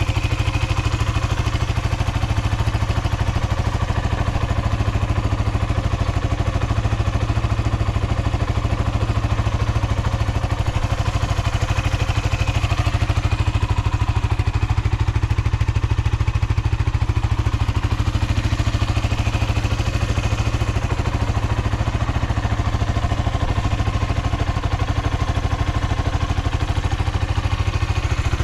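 Suzuki Volty's 250 cc air-cooled single-cylinder engine idling steadily with an even low pulse, running without abnormal noise.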